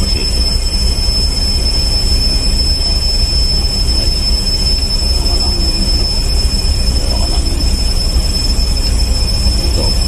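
Steady, loud machinery drone with a heavy low rumble and a constant high-pitched whine over it.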